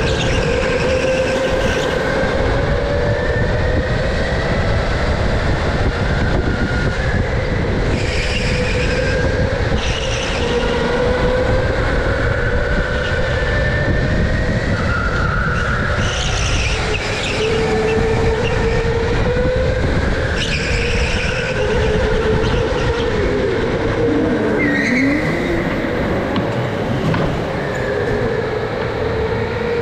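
Electric go-kart motor whining, its pitch rising and falling with speed, over the rumble of the kart's tyres and chassis on a concrete track.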